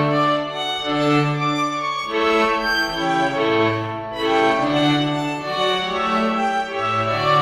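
Background music of bowed strings playing held notes that change pitch about every second.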